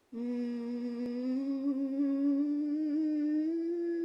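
A person's voice humming one long, unaccompanied held note that slowly rises in pitch through most of its length, with a slight wobble about three seconds in.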